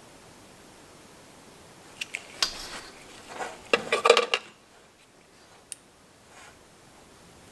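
Metal test clips and leads on a distributor test bench being handled and clipped onto a condenser. Two sharp clicks about two seconds in, then a couple of seconds of metallic clinking and rattling, and one more click near the end.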